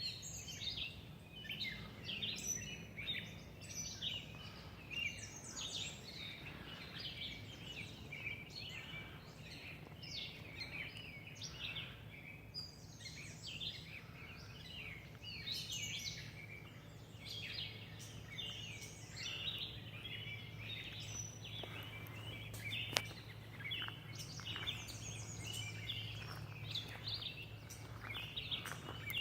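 Several birds chirping and singing in a busy, overlapping chorus, over a steady low hum.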